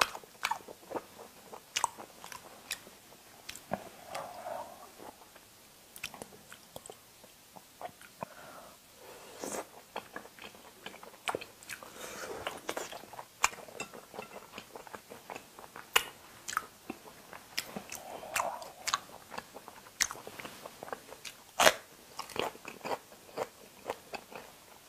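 A person chewing and crunching food close to the microphone, with many sharp, irregular mouth clicks and smacks.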